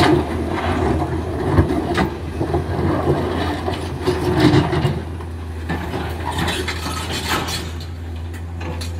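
Komatsu PC200 hydraulic excavator's diesel engine running steadily under load as the machine digs and swings, with scattered sharp knocks and clanks from the work.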